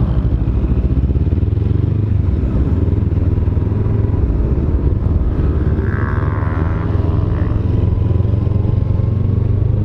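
Kawasaki Z300 parallel-twin motorcycle engine running at a steady, unchanging speed.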